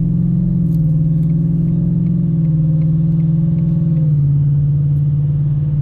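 Supercharged 5.0 L V8 of a Ford F-150, heard from inside the cab, pulling steadily under moderate acceleration. Its pitch steps down about four seconds in as the 10-speed automatic upshifts.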